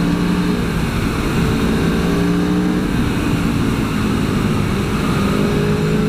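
Aprilia Tuono V4 1100's V4 engine pulling hard under acceleration, its note rising slightly in stretches that break off and restart, over heavy wind rush on the microphone.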